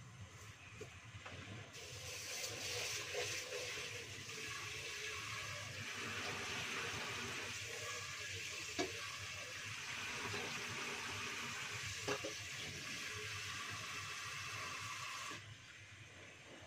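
Kitchen tap running water into the sink and a metal pot as rice is rinsed for cooking: a steady splash that starts about two seconds in and is shut off abruptly about a second before the end. Two short knocks, a few seconds apart, sound in the middle.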